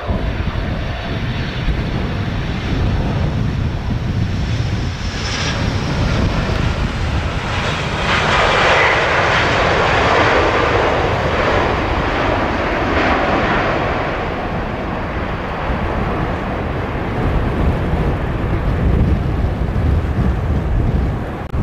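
Jet airliner landing: engines running on final approach, then after touchdown a surge of reverse thrust from about eight seconds in, strongest for a few seconds and fading as the jet rolls out.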